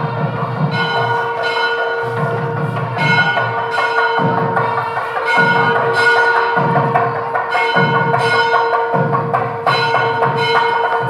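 Background music with bell-like ringing over a held drone and a steady beat about once a second.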